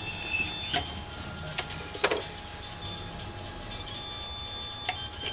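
Scattered light clicks and taps of small hand tools at a workbench, a few in the first two seconds and one near the end, the loudest about two seconds in, over a steady low hum with faint high tones.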